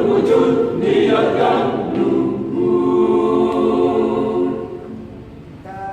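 Choir singing the closing phrase of the song, ending on a long held final chord that fades away.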